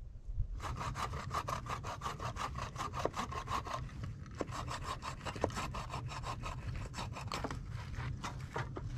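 Hand saw cutting through wood in quick, even back-and-forth strokes, with a brief pause about four seconds in and the strokes thinning out near the end.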